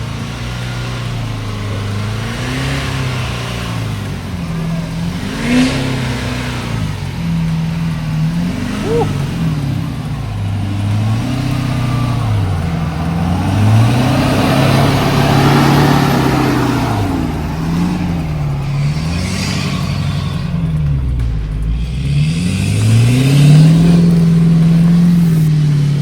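Ford F-350 on 40-inch tyres climbing an off-road hill, its engine revving up and falling back over and over as the driver works it up the slope, with a steady rush of tyre and dirt noise underneath.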